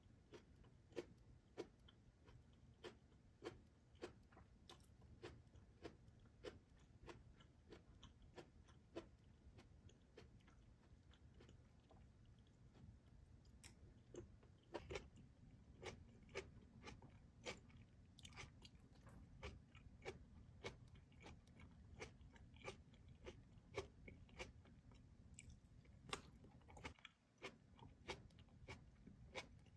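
Close-up chewing and biting of stir-fried onions and rice in oyster sauce: soft, moist crunches and clicks about one to two a second, coming faster in the second half, over a faint low hum.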